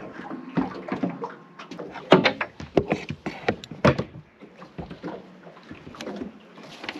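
Irregular knocks and clunks of handling on a metal boat, as people move on the cabin roof and work a rope at the rail.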